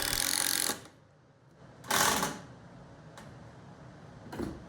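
Power drill driving pocket screws into 2x4 stretchers: a steady run that stops under a second in, a second short burst about two seconds in, then a click and a brief burst near the end.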